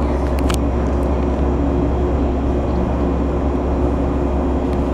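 Steady low drone and hum of stationary 223-series and 5000-series electric trains running their onboard equipment while standing coupled. A couple of short clicks come about half a second in.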